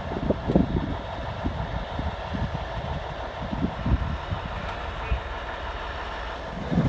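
Heavy diesel truck engine idling steadily, with irregular low surges in the rumble, strongest in the first second.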